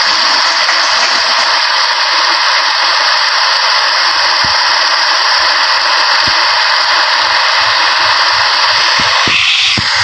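Loud steady hiss, with a brief change in its tone near the end.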